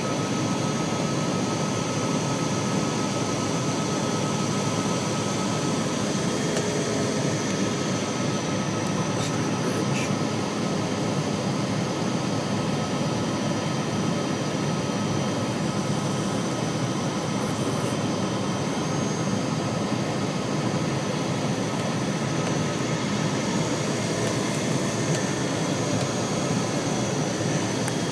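Learjet cabin noise on approach to land: the steady rush of the jet engines and airflow heard from inside the cabin, with a thin steady whine on top.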